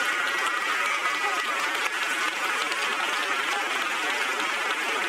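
Large audience laughing, with some clapping: a steady, dense wash of many voices.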